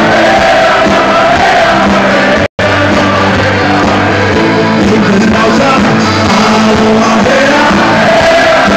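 Live rock band playing loudly, with singing over guitar and drums. The sound cuts out completely for an instant about two and a half seconds in.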